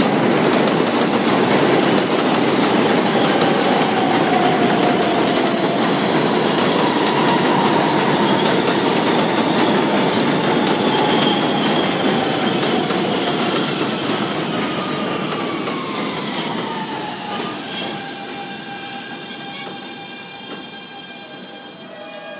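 NYC subway R160B train with Siemens propulsion pulling into the station: loud wheel-and-rail noise with a whine from the Siemens traction motors that falls in pitch as the train brakes. The noise fades over the second half, leaving several steady tones as it comes to a stop.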